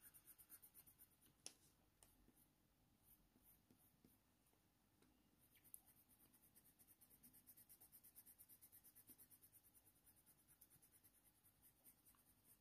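Very faint scratching of a Faber-Castell Polychromos coloured pencil shading on hot-press watercolour paper, in quick even strokes about four or five a second. The strokes stop for a few seconds after the first second and pick up again midway. There are two small ticks.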